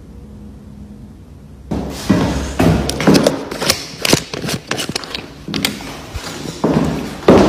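A sudden loud thud about two seconds in, then a run of irregular thumps, knocks and handling noise as the phone is swung about and carried over the wooden floor toward the door.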